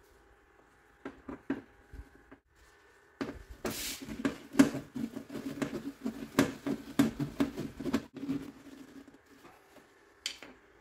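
Plastic mud flap and wheel-arch-liner screws being fitted by hand: a few scattered clicks, then about three seconds in a busy run of irregular clicks, scrapes and rattles of the screw and tool against the plastic, easing off after about nine seconds.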